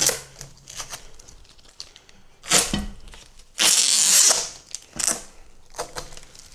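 Packaging being handled and torn while unpacking a 3D printer: a few short knocks and clicks, and a loud tearing, rustling burst lasting about a second a little past the middle.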